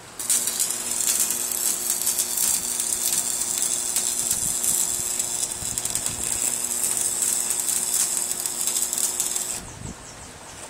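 Electric arc welding on a steel-bar grill frame. The arc strikes a fraction of a second in and runs as one continuous, loud crackling sizzle for about nine and a half seconds, with a low steady hum under it. It cuts off abruptly about a second before the end.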